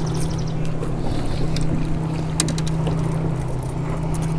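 Boat motor humming steadily, with wind noise on the microphone and a few short clicks near the middle.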